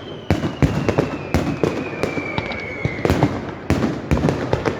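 Fireworks going off: a rapid, irregular string of sharp bangs, with one high whistle sliding slowly down in pitch over the first three seconds.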